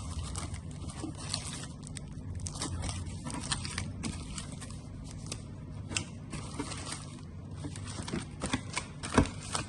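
Handling noise of the kit's small parts being picked over: light rustling with scattered small clicks and taps, a few sharper ones near the end.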